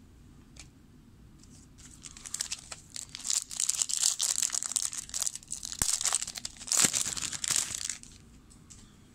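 Foil wrapper of an Upper Deck football card pack crinkling and tearing as it is ripped open by hand, starting about two seconds in and stopping shortly before the end.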